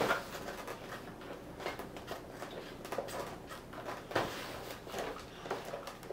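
Toy packaging being handled and worked loose: scattered clicks and rustles of plastic and cardboard, a few sharper clicks spaced a second or so apart.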